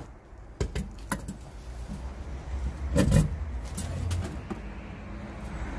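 Vehicle engine idling with a low, steady hum, with scattered sharp knocks and a louder clunk about three seconds in.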